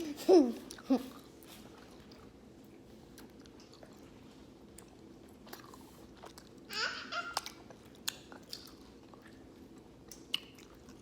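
People chewing hard sour candy close to the microphone: scattered small crunches and mouth clicks. A short vocal sound at the start and another about seven seconds in.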